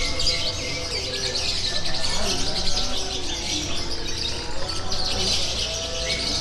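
Many caged songbirds singing at once: a dense, continuous chatter of quick high chirps and trills, with no pause.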